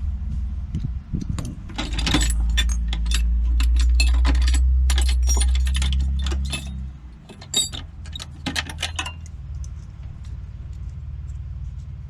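Rapid small metallic clicks and rattles of lock-picking tools working the pins of a lock cylinder, with the last pin still unset. A steady low rumble runs underneath and swells louder for a few seconds in the middle.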